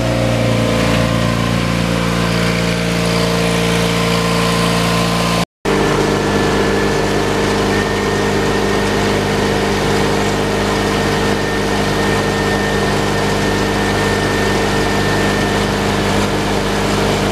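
Onan Performer 16XSL gasoline engine on a grain weigh wagon running steadily, broken by a momentary dropout about five seconds in. After the break a faint high whine runs along with it.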